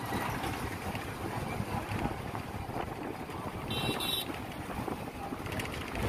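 Steady rush of wind on the microphone and road noise from a moving vehicle crossing a bridge in traffic, with a brief high-pitched beep about four seconds in.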